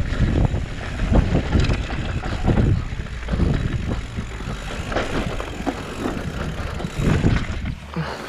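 Mountain bike rattling over a rough downhill trail at speed, with wind rushing over the microphone and irregular knocks and jolts from the bumps; briefly quieter near the end.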